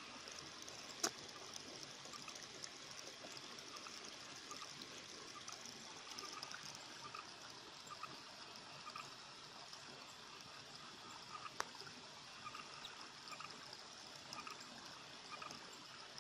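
Faint steady hiss of a flooded rice paddy at night, with a small sharp click about a second in and another near twelve seconds.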